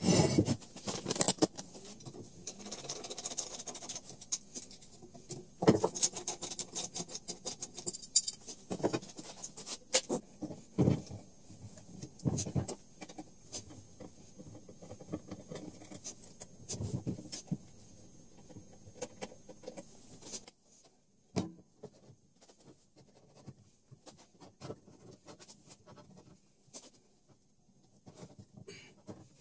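Scattered clicks, taps and clinks of a hex key and metal parts being handled as a MaxNC mini-mill's Y-axis table and stepper motor are taken apart. The handling grows sparser and fainter in the last third.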